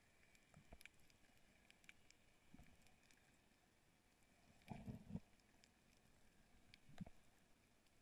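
Near silence underwater, heard through a camera housing: faint scattered clicks and crackles, with a few soft low thumps about five seconds in and one near the end.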